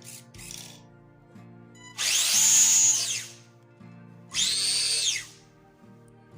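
Electric motor and four-wheel-drive gearing of a Tamiya Avante RC car run up twice on the throttle: each time a whine that rises in pitch, holds, then winds down as the throttle is released. A first test of the newly fitted brushed ESC and motor.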